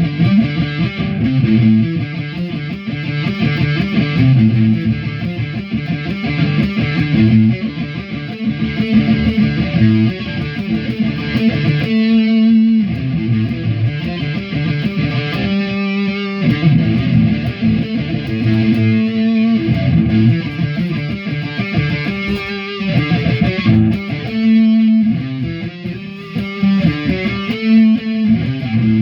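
Electric guitar playing a heavy metal riff, with a few brief stops between phrases.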